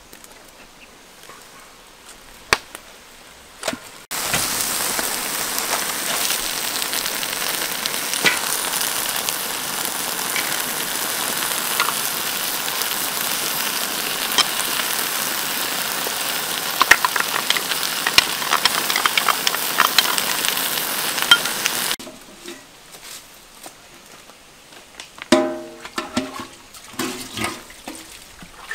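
Sauce sizzling as it is poured over chicken and cabbage in a hot wok over a wood fire: a steady hiss with small crackles that starts suddenly about four seconds in and cuts off suddenly after about eighteen seconds.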